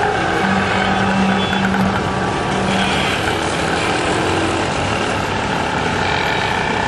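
Busy city street traffic: auto-rickshaw and other vehicle engines running, with a steady low hum from about half a second in to about three seconds in.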